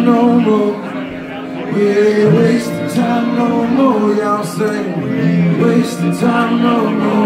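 Live funk band playing: a male singer holds and bends sung notes over electric guitar and the rest of the band.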